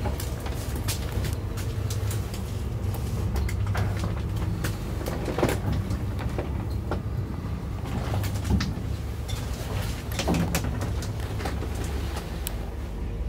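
Old KMZ passenger lift (1996, 1 m/s) travelling in its shaft, heard from inside the cab: a steady low hum, with frequent clicks and rattles from the car, a few of them sharper knocks.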